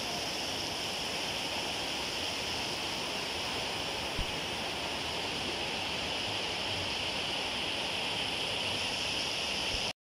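Steady rush of water from the spring running over rock, with no change in level, cutting off suddenly just before the end.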